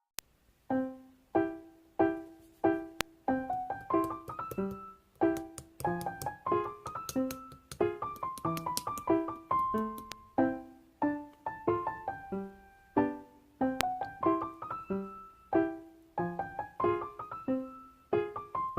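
Background piano music: a light, bouncy tune of short separate notes.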